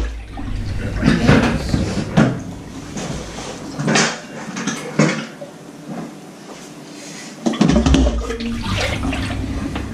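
Cake batter being whisked in a mixing bowl: wet sloshing and scraping in irregular strokes, easing off for a moment past the middle.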